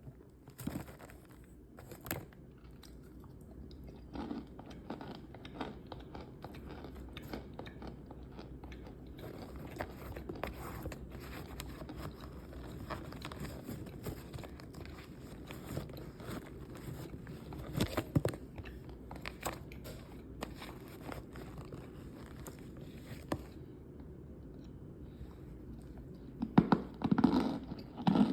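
Compacted cornstarch being crunched and chewed close to the microphone: a steady dense crackling of small crumbly clicks, with a run of louder bites near the end.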